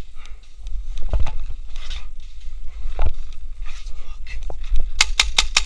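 Rumble of wind and handling on an action camera's microphone, with a dull knock about a second in and another about three seconds in; near the end a quick string of about five sharp pops, paintball marker fire.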